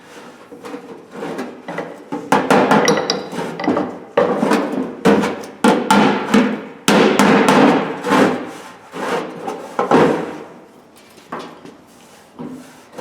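Hammer tapping out a dent in a Craftsman toolbox's sheet-steel body: many sharp, irregular metallic strikes, dying away near the end.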